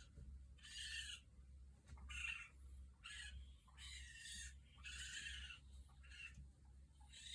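Faint, repeated rasping hiss-like calls from an animal hidden in the attic, each under a second long and coming about once a second.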